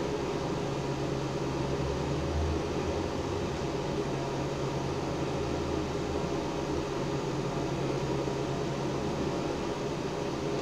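Steady mechanical hum and whir, like a running machine, with a low rumble that swells briefly about two seconds in and again around six seconds.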